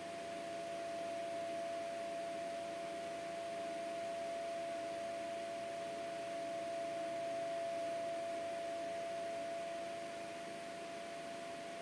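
A steady whine held at one unchanging pitch, over faint background hiss.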